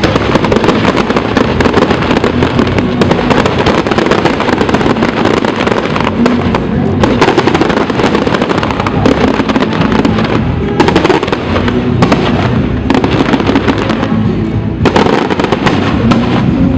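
Fireworks display: aerial shells going off in a dense, continuous barrage of bangs and crackles, with music playing underneath.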